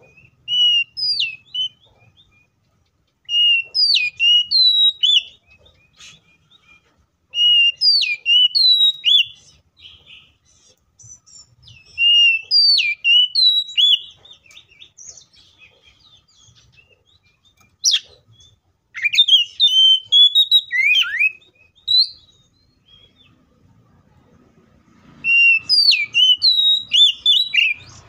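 Oriental magpie-robin singing loud, clear whistled phrases in bouts of about two seconds every few seconds, each bout a run of short rising and falling notes, with one longer, more varied bout past the middle.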